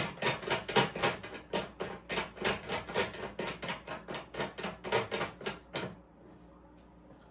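Rapid, even clicking, about four or five clicks a second, as a part on top of a bushing resizing die set in a single-stage reloading press is turned by hand. The clicking stops about six seconds in.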